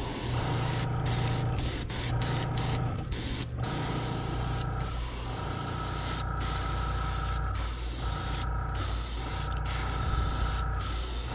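Airbrush spraying paint: a steady hiss of air that breaks off briefly a dozen or so times as the trigger is let go between passes, over a steady low hum.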